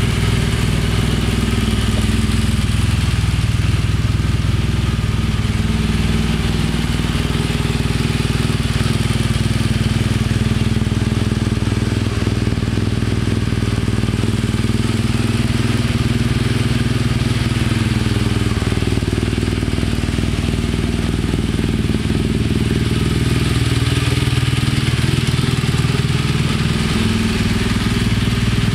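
BMW R1200RS's 1170 cc boxer twin engine idling steadily, its pitch wavering briefly a couple of times.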